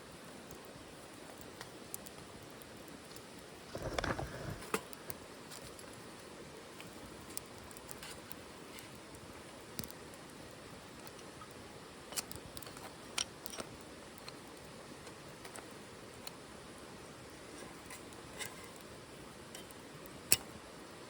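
Wood fire burning in a titanium wood stove: a steady low hiss with scattered sharp crackles and pops, the loudest near the end. About four seconds in there is a brief, louder rustle.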